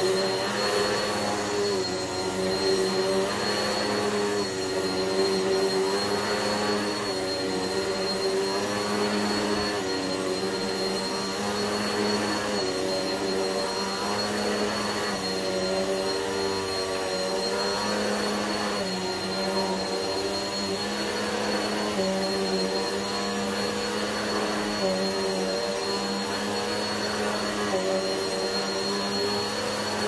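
Eureka PowerSpeed upright bagless vacuum cleaner running on carpet, pushed back and forth. Its motor pitch dips and recovers with each stroke, about every two seconds, over a steady high whine.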